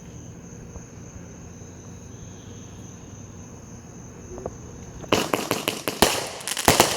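Crickets trilling steadily. About five seconds in, a 200-gram consumer fireworks cake starts firing a rapid string of sharp cracking reports.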